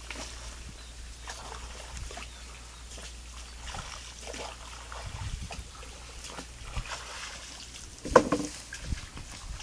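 Paddle strokes dipping and sloshing in creek water as a wooden canoe is paddled along, with a sharp wooden knock near the end.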